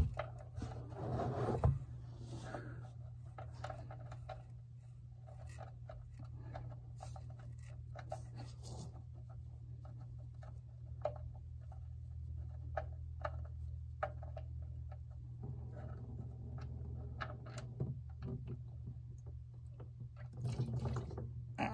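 Light clicks and scrapes from the oil drain plug being unscrewed by hand, over a steady low hum.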